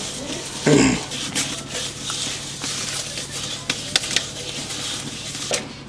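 A bundle of thin sticks stirring in a clay cooking pot, with scattered light clicks and taps as it knocks the pot, and one louder knock just under a second in.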